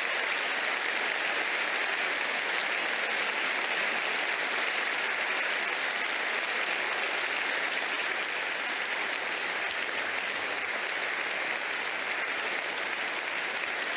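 A large assembly applauding: dense, steady clapping that holds without a break.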